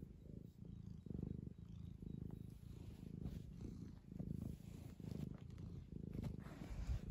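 Young tabby cat purring steadily close up while being stroked, the purr swelling and easing with each breath about once a second. A brief low bump near the end.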